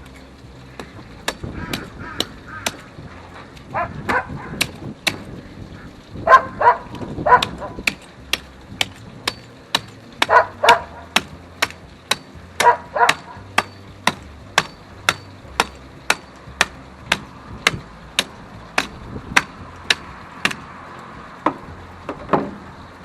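Repeated sharp chopping strikes of a hand tool cutting through the bony, armoured hide of an alligator gar, falling into a steady rhythm of about two strikes a second. A dog barks in short bursts between the strikes.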